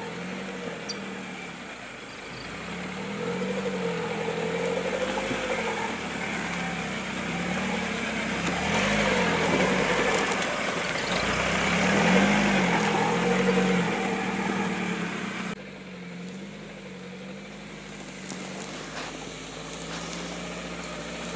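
Engine of a karakat, a low-pressure-tyre all-terrain vehicle, running under way, its pitch rising and falling as the revs change. About two-thirds of the way through the sound changes abruptly to a quieter, steadier engine note.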